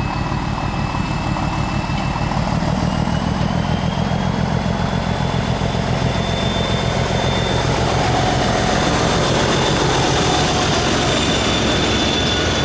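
Diesel locomotive engine running steadily and heavily, with a steady high whine over it that rises slightly in pitch about three seconds in.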